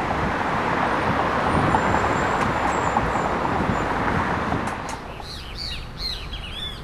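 Steady road traffic noise from a busy multi-lane city avenue. About five seconds in it drops to a quieter background, with birds chirping.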